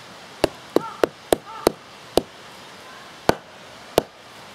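A hand hatchet wedged in the end of a short log, knocked down together with the log onto a wooden stump again and again to drive the blade through: eight sharp wooden knocks, the first six about three a second, then two more spaced farther apart.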